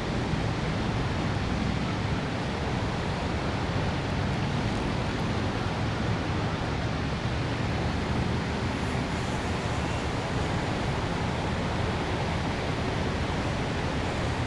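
Steady city ambience: a constant wash of traffic noise with a low hum underneath, even throughout, with no single event standing out.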